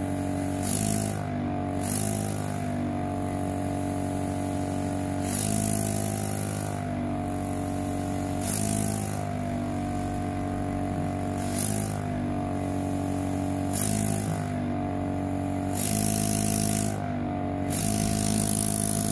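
Air pump of a Cake Deco Pen sugar-craft dispenser humming steadily, with short bursts of air hiss every few seconds; the hum shifts in pitch with each burst.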